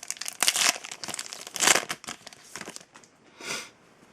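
Crinkling of a foil trading card pack wrapper being handled, in irregular bursts that thin out toward the end, with one last short crinkle about three and a half seconds in.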